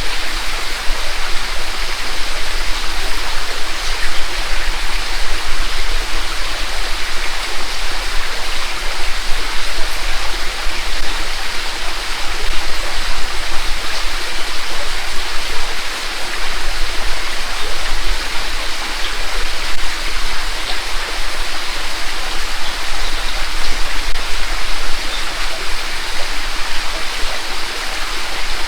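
Mountain creek rushing steadily over its rocky bed, a continuous babble of flowing water.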